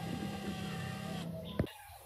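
DCA 20 V cordless driver running steadily as it drives a woofer's mounting screw into the wooden speaker cabinet, stopping with a click about a second and a half in.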